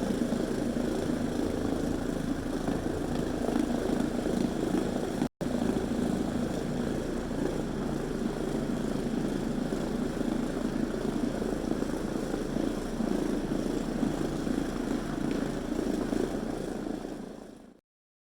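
Trinity Phoenix floor machine running steadily, spinning microfiber pads over a rubber mat: a steady motor drone. It drops out for an instant about five seconds in and fades away near the end.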